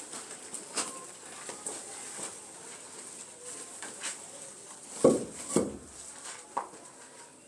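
Irregular light knocks and taps, with two louder knocks about five seconds in, half a second apart.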